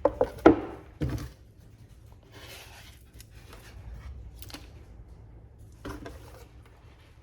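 Paint cups and pouring tools handled on a work table: a few sharp knocks in the first second, then quieter scattered scraping and rustling.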